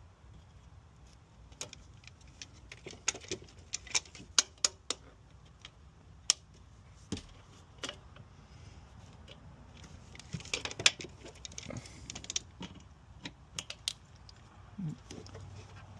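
Hose clamps on the intake hoses being handled and moved into place: irregular metallic clicks and clinks, with a denser cluster of clatter about ten seconds in.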